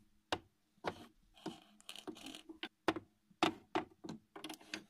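A plastic toy rider figurine's boots tapped on a dollhouse floor as it is walked along by hand: a string of light, irregular taps.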